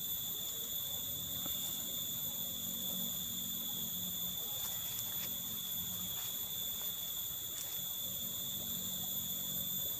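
Insects calling in a steady, high-pitched, unbroken chorus, with a few faint clicks scattered through it.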